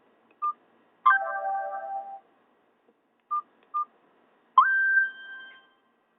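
Nokia 216 mobile phone's speaker playing short snippets of Nokia 5230 ringtones, each stopping after about a second. Between the snippets come pairs of short, high single beeps from the phone's keypad.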